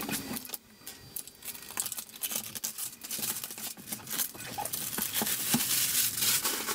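Clear plastic wrapping being pulled off a cardboard box and crumpled: a dense crackling and rustling that gets louder over the last couple of seconds.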